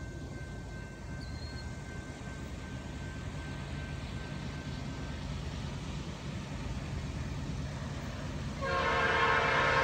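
Diesel freight locomotives approaching, a low rumble that slowly grows louder. Near the end the lead locomotive's air horn starts suddenly, a loud multi-note chord.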